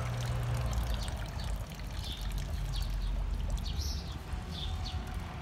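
Water pouring steadily into a garden pond, splashing on the surface, with a bird chirping several times.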